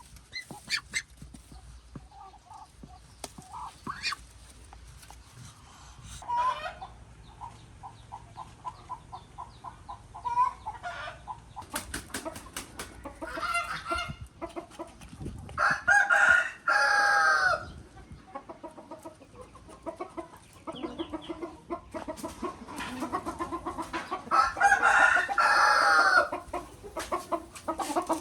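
Chickens clucking in runs of quick, evenly spaced clucks, with a rooster crowing loudly twice: once about halfway through and again near the end.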